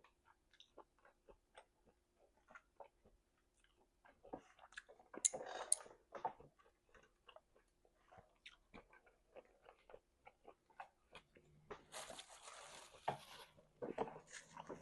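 Close-miked eating sounds: a person chewing and biting food with many small wet mouth clicks and smacks. A louder noisy patch comes about five seconds in and a longer hiss around twelve seconds in.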